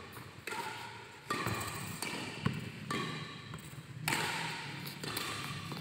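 Sharp hits of a doubles rally, about five, roughly a second apart, with steady background noise between them.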